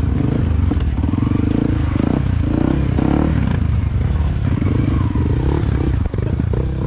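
Yamaha WR155's single-cylinder four-stroke engine running at low revs as the bike rolls along a dirt trail, heard on board, its note shifting slightly with the throttle.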